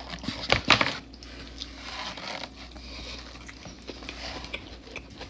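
Close-miked chewing and lip smacking on a fried chicken sandwich, with a few sharp wet smacks in the first second and softer mouth clicks after.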